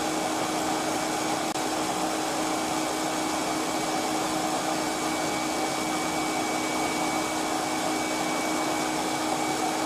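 Stand mixer running steadily at a constant speed, its whisk beating cake batter, with an even motor whir.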